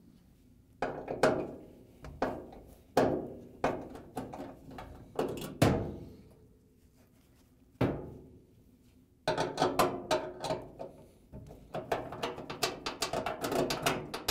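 Hand-tool work on a dryer's sheet-metal rear bulkhead while the screws holding the rear roller axle bracket are taken out with a nut driver. It starts as a series of separate knocks with short ringing, then becomes a fast run of clicks and rattles from about nine seconds in.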